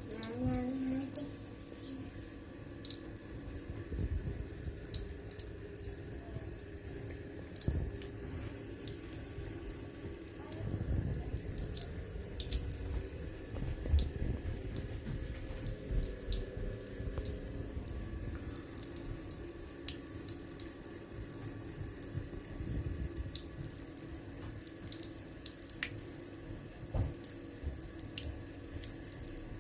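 Bathroom mixer tap running a thin stream of water into a ceramic basin: a steady trickle and splash with faint irregular ticks.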